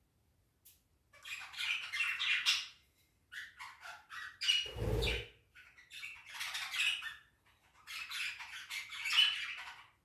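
Indian ringneck parakeet squawking and chattering in four harsh stretches of calls, with a short low thump about halfway through.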